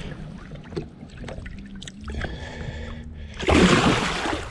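A large northern pike released by hand at the side of a boat kicks free with a loud splash about three and a half seconds in, after a few seconds of quieter water sounds.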